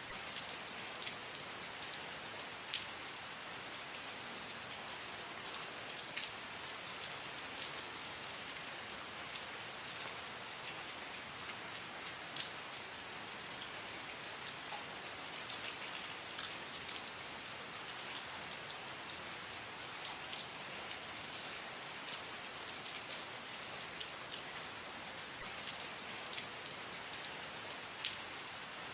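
Steady rain falling on a surface, an even hiss with many scattered drop ticks.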